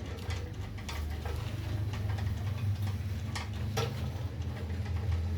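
A few sharp clicks and light knocks, like parts or tools being handled, over a steady low hum.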